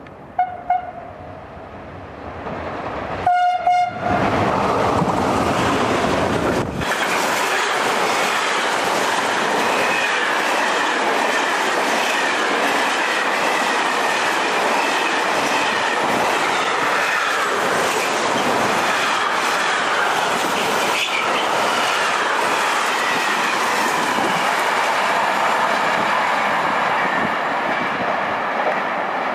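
Electric locomotive sounding its horn, a short toot and then a longer blast about three seconds in, as it comes through hauling a freight train. The freight wagons then pass at speed, with a steady loud rumble and the clatter of wheels over the rails.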